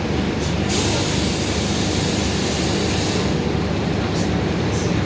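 Mercedes-Benz OF-1721 city bus under way, a loud steady low drone from the driveline: the differential rumbling very loud. A rush of high hiss comes in about a second in and fades a little after three seconds.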